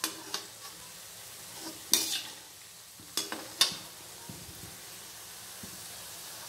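Bottle gourd koftas deep-frying in hot oil in a metal kadhai, a steady sizzle. A perforated slotted spoon scrapes and clinks against the pan several times in the first four seconds as the koftas are turned.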